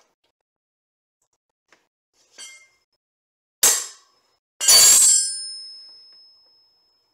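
Metal hand tools clinking against metal: a small clink, then a sharp clank, then a louder clang about a second later that rings on and fades over a second and a half.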